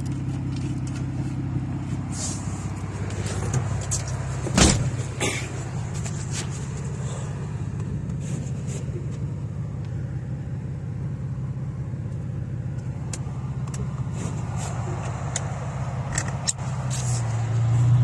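Nissan 350Z's 3.5-litre V6 running at low revs, heard from inside the cabin, with scattered clicks and one sharper knock about four and a half seconds in. Near the end the engine note rises as the car moves off in deep snow.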